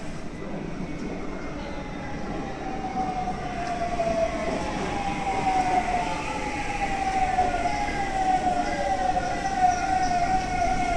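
Taipei Metro C301 train pulling into an underground station as it brakes. Its traction motors whine in several tones that slide steadily downward, over a low rumble that grows louder as the train comes alongside.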